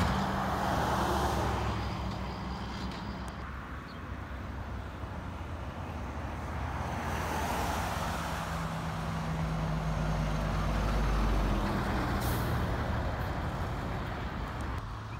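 Diesel dump trucks passing: one engine drone fades as the truck pulls away, then another heavy dump truck approaches and passes close by, its deep rumble loudest about ten to twelve seconds in, with a short sharp hiss just after.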